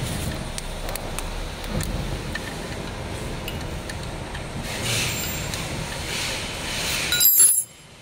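Steady background noise with faint clicks of hand work at a scooter's front axle, then near the end a short run of bright metallic clinks: a steel spanner set down on a concrete floor.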